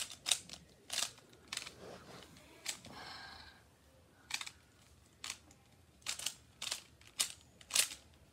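Rubik's cube faces being twisted: a dozen or so sharp plastic clicks at irregular intervals, with a short scraping rattle about three seconds in.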